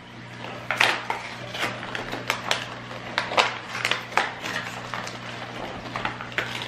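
Plastic and foil toy packaging being torn open and handled: irregular crinkling, crackles and sharp clicks, several sharper snaps scattered through.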